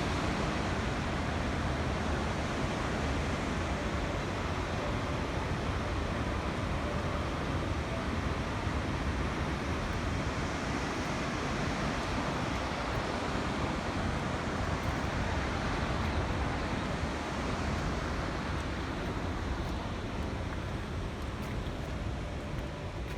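Steady rushing of water released from a dam, easing off slightly near the end.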